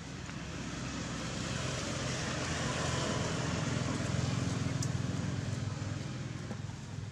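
A motor vehicle passing by: a steady engine-and-road noise that swells to its loudest about four seconds in, then fades away.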